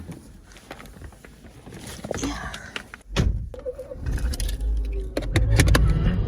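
A string of sharp clicks and thuds, with keys jangling and a door shutting, over a low rumble that grows louder in the second half.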